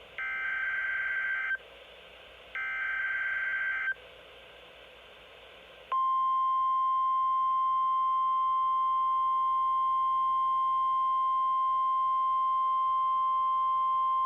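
NOAA Weather Radio EAS signalling for a Required Weekly Test: two short, raspy SAME digital header bursts, each about a second and a half long, over faint radio hiss. About six seconds in, the steady 1050 Hz warning alarm tone starts and holds as one unbroken pitch.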